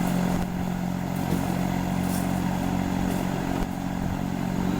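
A steady low mechanical drone, as from a running motor, with a few faint light knocks.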